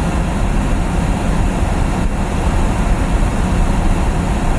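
Steady road noise inside a moving car's cabin: a low rumble from tyres on a snowy road and the engine, with a hiss over it.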